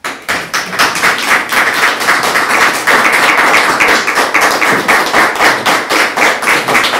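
Audience applauding: dense clapping that breaks out all at once and then holds steady.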